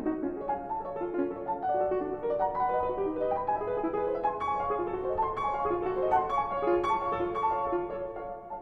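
Instrumental music led by a piano playing a steady stream of quick notes.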